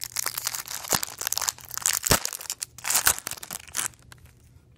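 Foil trading-card pack wrapper being torn open and crinkled, a dense crackling that stops about four seconds in.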